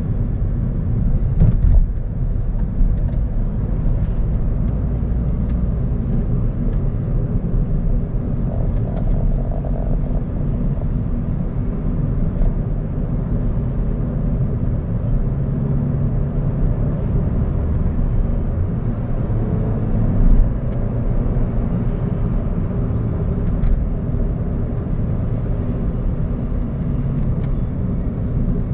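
Cabin sound of a Suzuki Ignis with a 1.2-litre four-cylinder petrol engine, driving at low town speed: a steady low engine and road rumble, with a couple of brief knocks, one about a second and a half in and one about twenty seconds in.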